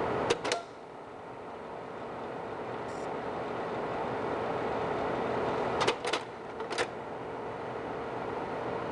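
Slide projector running, its cooling fan giving a steady hum, while the slide-change mechanism clacks: a double click about half a second in, then another cluster of clicks around six to seven seconds in as the next slide drops into place.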